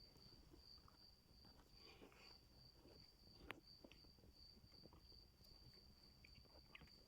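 Near silence: a faint, steady high-pitched tone over a low hum, with a few soft ticks and one sharper click about three and a half seconds in.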